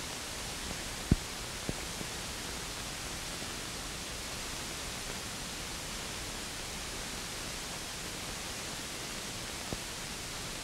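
Steady hiss of the old soundtrack's background noise, with a sharp click about a second in and a few fainter ticks; the machine-gun fire seen in the picture is not heard.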